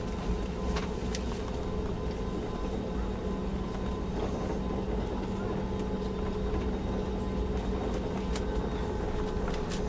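Steady drone of an airliner's engines heard inside the cabin before takeoff, with a constant hum and a few faint clicks.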